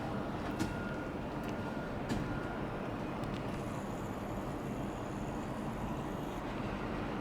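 Steady outdoor noise of a city in a snowstorm, with a low hum underneath and a few faint clicks.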